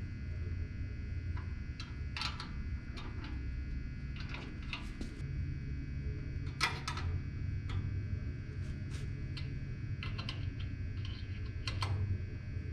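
Irregular light metallic clicks and taps of a 6 mm hex key working the bolts that hold the disc sander's table, over a steady low hum.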